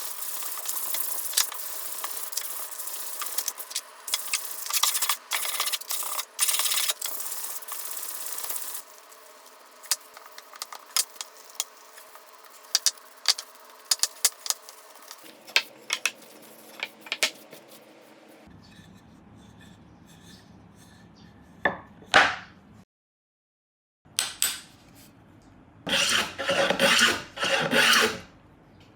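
Hand tools working Korean mahogany: repeated rough rubbing and rasping strokes, dense at first, then sparser scrapes and clicks, with a louder flurry of strokes near the end. The sounds are cut together from several short clips.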